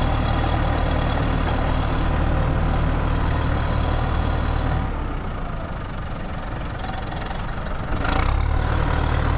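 New Holland 6640SL tractor's four-cylinder diesel engine running steadily. It drops back about halfway through and picks up again near the end.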